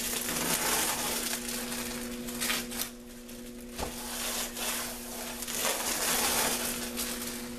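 Thin plastic canvas wrapping crinkling and crackling as it is crumpled, pressed into wet spray paint on a canvas and lifted off again to texture the paint. A steady low hum runs underneath.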